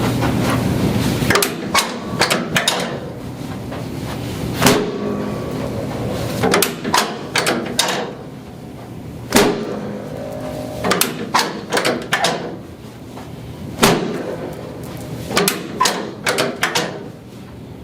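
Chiropractic adjustment of a patient lying face down: sharp clicks and knocks, some single and some in quick clusters of three to five, every few seconds.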